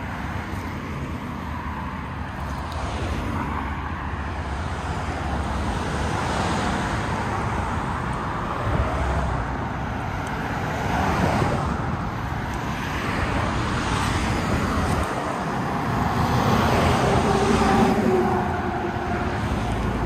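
Road traffic on a multi-lane street: cars passing one after another, their tyre and engine noise swelling and fading, loudest near the end.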